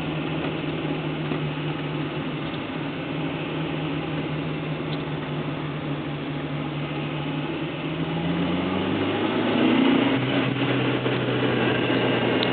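2004 Honda Civic Si hatchback heard from inside the cabin, its engine running steadily under road and tyre noise. About eight seconds in the engine note rises, then near ten seconds it drops to a lower, steady note.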